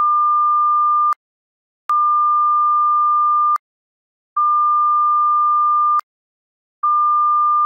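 Electronic beep at one steady high pitch, sounding as four long beeps of about a second and a half each with short silent gaps between them.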